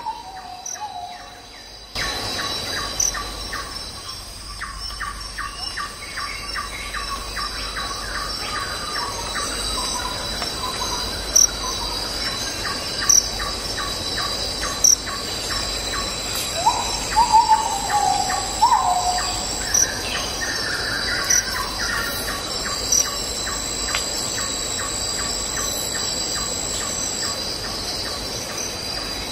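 Forest ambience: a steady high-pitched drone of insects with a regular ticking pulse, and a bird calling a few short falling whistled notes about two-thirds of the way through.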